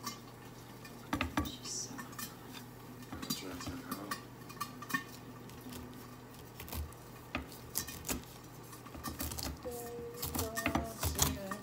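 Kitchen knife cutting through a pineapple's tough rind, with irregular sharp clicks and knocks as the blade and fruit strike the cutting board.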